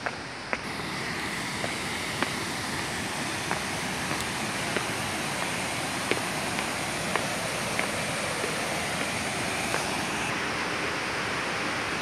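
Steady rushing of a waterfall, with light footsteps on concrete steps ticking about once a second.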